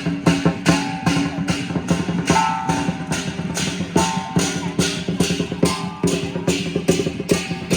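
Lion dance percussion: drum and cymbals striking a steady beat about three times a second, over sustained pitched notes.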